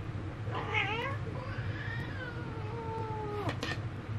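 Domestic cat meowing: a short wavering meow, then one long drawn-out meow that slowly falls in pitch, followed by a couple of sharp clicks.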